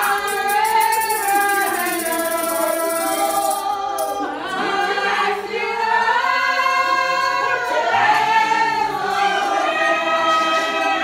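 A congregation singing a hymn together, many voices drawing out long notes that slide between pitches. A steady high rattle keeps the beat through the first few seconds.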